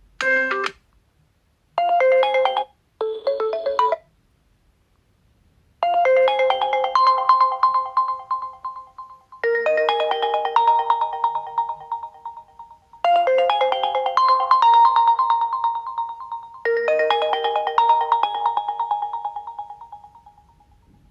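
Oppo A16 phone tones playing: three short melodic chimes in the first four seconds, then, after a pause of about two seconds, a ringtone melody whose phrase repeats four times and fades out near the end.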